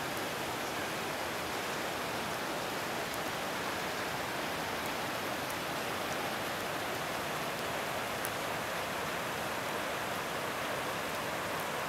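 Steady outdoor rushing hiss, even and unchanging, with a few faint high ticks scattered through it.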